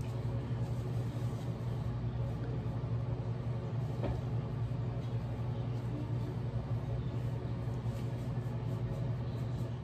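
A steady low hum with a faint hiss above it and a faint click about four seconds in.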